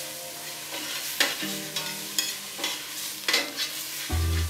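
A metal spoon stirring and scraping vegetables sautéing in oil in a stainless steel stockpot. There is a steady sizzle of frying, with a scraping stroke about once a second.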